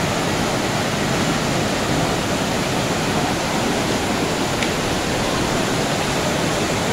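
Heavy rain pouring down in a steady, loud, even hiss, with one faint tick partway through.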